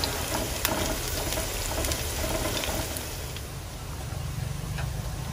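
Battered shrimp fritters sizzling in shallow oil in a nonstick frying pan, with a few light clicks of chopsticks against the pan. The sizzle grows softer after about three seconds.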